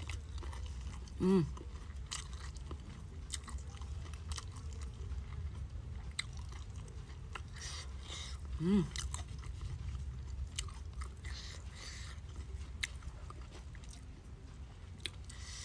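Close-up chewing and crunching of a mouthful of rice with raw leunca berries and basil leaves, with small wet mouth clicks and smacks throughout. Two short hummed sounds break in, about a second in and again near the middle.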